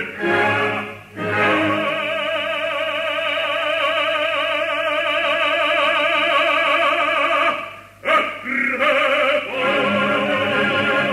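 Opera singing with orchestra: a singer holds a long note with wide vibrato for several seconds, breaks off about eight seconds in, then sings on into another held note.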